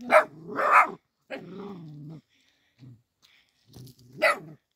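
A puppy barking: three sharp barks, two close together at the start and one about four seconds in, with a lower drawn-out sound between them.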